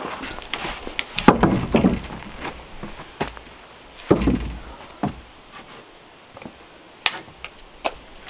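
Wooden knocks and thumps from a rough-sawn pine slab being handled and set down on a plank deck, with the heaviest, deepest thud about four seconds in. A few light clicks follow near the end.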